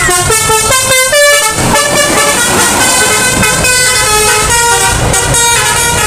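Telolet horn on an Indonesian tour bus: a multi-tone air horn sounding a quick tune of shifting notes, several pitches at once, with traffic noise underneath.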